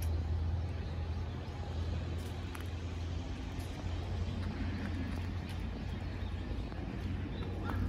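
Steady low rumble of distant city traffic, under a faint open-air hiss.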